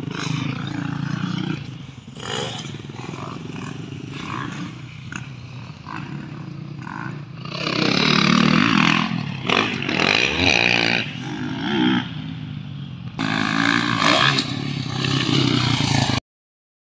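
Dirt bike engines running and revving on a motocross track, rising and falling in pitch, with louder stretches as bikes pass close in the second half. The sound cuts off suddenly near the end.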